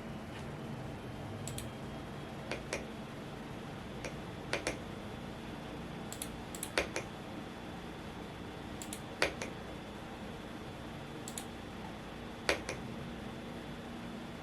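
Occasional keystrokes on a Womier S-K71 mechanical keyboard, scattered sharp clicks in ones, twos and threes with pauses of a second or more between them, over the steady rush of a fan.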